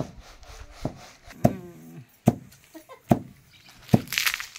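A hand-held stone beating a pile of dried jhudung bean plants on hard ground to thresh them by hand: six dull thuds, about one every 0.8 seconds, with a dry rustle of the stalks near the end.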